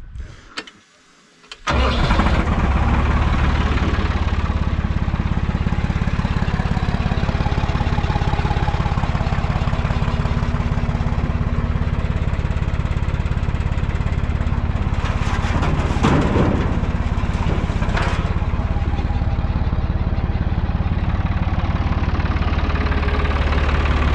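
Hattat 240S tractor's diesel engine catching suddenly about two seconds in, then running steadily at an even speed.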